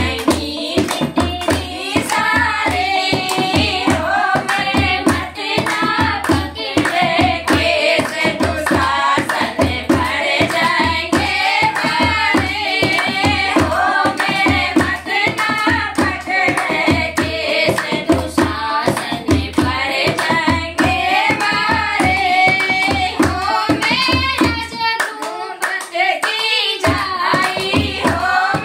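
Group of women singing a Hindi devotional bhajan together, to a dholak drum played by hand in a steady beat and rhythmic hand clapping. The drum's low beat drops out for a couple of seconds near the end while the singing goes on.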